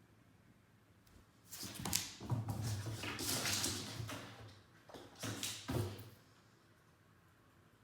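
Bursts of scuffling and rustling, loudest from about one and a half to four and a half seconds in, with a shorter burst around five to six seconds in.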